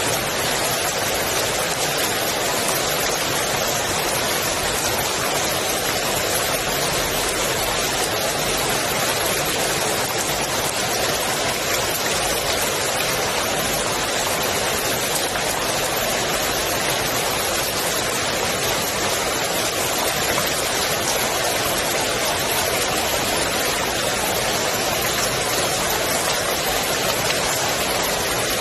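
Rain falling steadily onto a swimming pool's water: a dense, even hiss of drops with no let-up.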